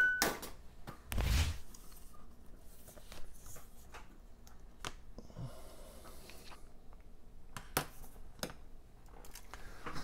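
Handling noise as a MacBook Pro logic board is picked up and moved about on a desk: scattered small clicks and knocks, with one heavier thump about a second in and two sharp clicks near the end.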